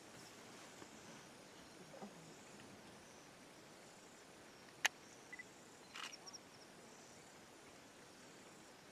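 Quiet bush ambience: faint high-pitched insect chirping over a low hiss, with one sharp click about five seconds in and a couple of faint rustles a second later.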